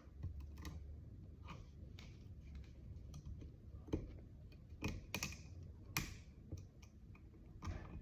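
Faint, irregular small metal clicks and taps of hand tools and small parts while fitting the kingpin's retaining hardware (snap ring and cotter pin), with a few sharper clicks around the middle.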